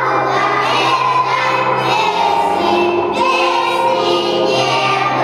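A group of young children singing a song together over a recorded musical accompaniment, with a steady low note held underneath.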